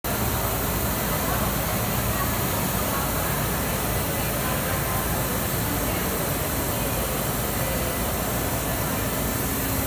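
Steady din of a busy trade-fair hall: indistinct crowd chatter over the even noise of running machinery, with no distinct events.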